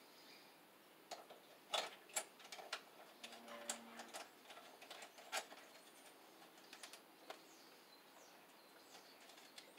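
Light clicks and taps of a Romex cable connector being handled and pushed into a knockout in the bottom of a steel breaker panel. They come in an irregular series, the loudest a couple of seconds in.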